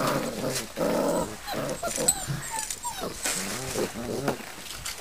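Five-week-old Belgian Shepherd puppies vocalizing at play: a run of short calls that bend up and down in pitch, with some growling.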